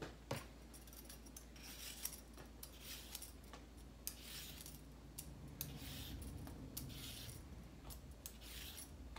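Vegetable peeler scraping down a raw carrot: a faint rasp with each stroke, a stroke every second or so. A light knock comes just after the start.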